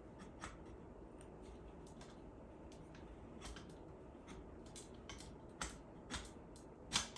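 Scattered light clicks and knocks of stitching-frame parts being handled and fitted together by hand as the frame is assembled. They are sparse and faint at first, come more often about halfway through, and the sharpest click falls near the end.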